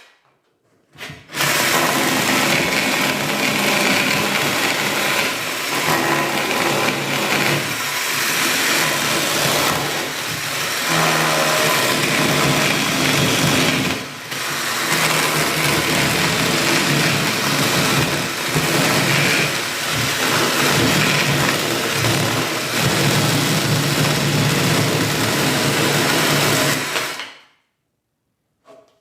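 Drill-driven mini chainsaw attachment starting up about a second in and running steadily while cutting through wood, with a short dip about halfway. It stops abruptly near the end.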